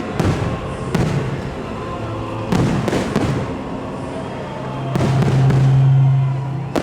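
Fireworks display going off: irregular sharp bangs about every second or two over continuous crackling and rumbling. A steady low drone swells up near the end.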